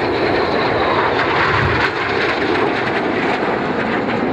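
Steady rushing jet noise from BAe Hawk jets of the Red Arrows display team flying past, their single Adour turbofan engines running.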